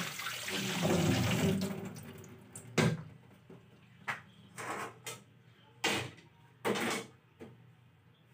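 Water running from a kitchen tap for about the first two seconds, then stopping. This is followed by about six separate knocks and clatters, the loudest near three and six seconds in.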